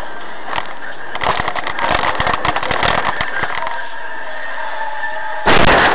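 Dashcam recording of a road crash: steady road noise, then a clatter of rapid knocks and crackles for a couple of seconds, and a sudden loud burst of noise near the end.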